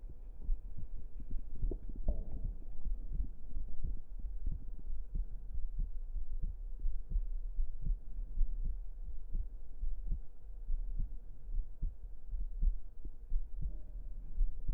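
A human heartbeat heard close up, a steady run of soft low thuds over a constant deep rumble.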